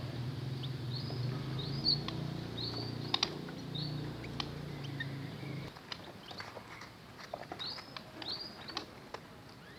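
Small cage birds giving short, repeated chirps, in scattered runs of two or three, with a few sharp clicks among them. A low engine hum runs underneath and stops about six seconds in.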